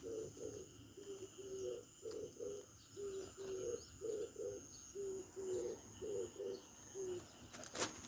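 A dove cooing: low hoots in short repeated groups, one phrase after another. A short burst of noise comes near the end.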